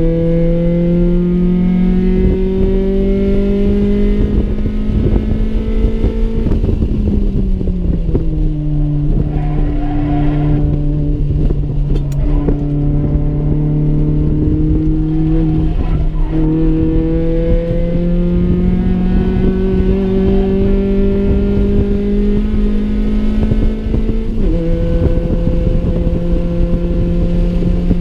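Honda Civic's D16A6 SOHC four-cylinder engine heard from inside the cabin, running at high revs under load on track. The revs climb slowly, sag gradually about seven seconds in, climb again for a long stretch, and drop suddenly near the end at a gear change, over a constant rumble of road noise.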